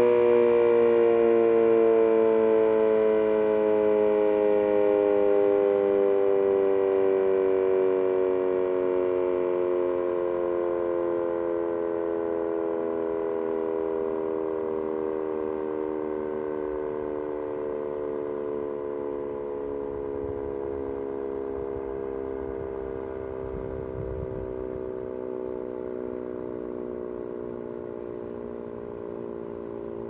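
Sentry 10V2T dual-tone rotating storm siren winding down at the end of its alert signal: its chord of tones slowly falls in pitch and fades.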